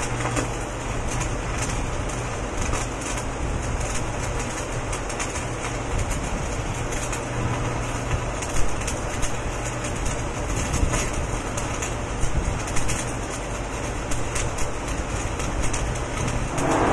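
Electric arc welding on a large spiral steel pipe: the arc's steady crackling sizzle, dense with tiny sharp pops, over a constant low hum.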